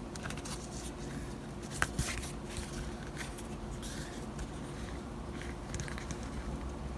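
Faint handling of a paper wall calendar and its packaging: scattered light rustles and a couple of sharp clicks about two seconds in, over a steady low hum.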